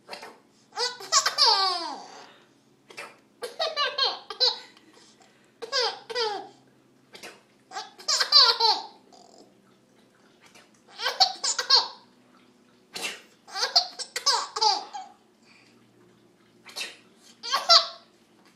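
A baby laughing in about seven separate high-pitched bursts, roughly one every two to three seconds, set off by her mother's sneezes. Short sharp sounds fall between some of the bursts.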